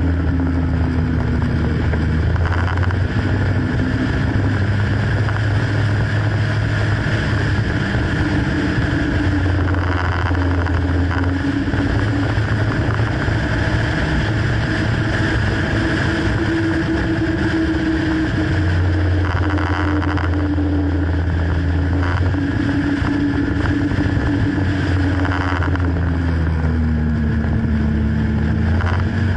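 Motorcycle engine running under way, its pitch slowly rising and falling with the throttle.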